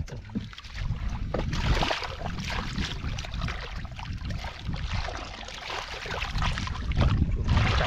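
Shallow muddy water sloshing and splashing as hands and rubber boots churn through it, in many short uneven bursts.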